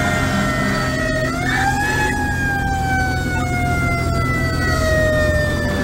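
Fire engine siren heard from inside the cab, its pitch winding slowly down, pushed back up about a second in, then winding down slowly again, over the low rumble of the truck's engine.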